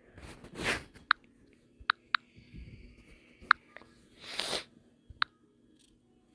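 A person's two breathy exhales, one near the start and one about four seconds in, with five short, sharp clicks scattered between them.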